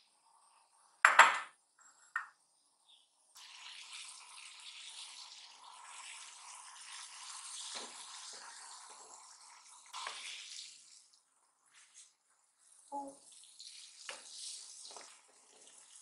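Water boiling hard in a hammered aluminium saucepan, a steady bubbling hiss, while eggs are lowered in on a wooden spoon with a few soft knocks against the pan. Near the start, a loud hard clack, the loudest sound, then a smaller one a second later; the bubbling breaks off briefly about two-thirds of the way through.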